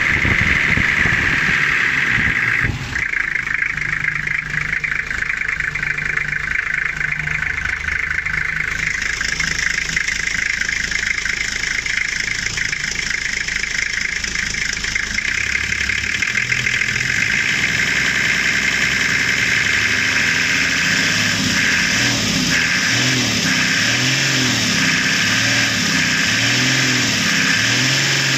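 Toyota 1HZ straight-six diesel engine running steadily. In the last third it is revved up and down over and over, its pitch rising and falling in repeated swells.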